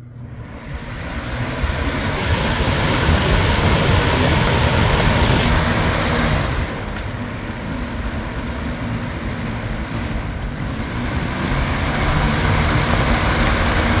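Lasko Power Plus box fan running on a new keyed replacement blade: a steady rush of moving air over a low motor hum, building over the first couple of seconds and easing somewhat for a few seconds midway. There is no clunking, the sign that the blade now grips the motor shaft and spins true instead of slipping.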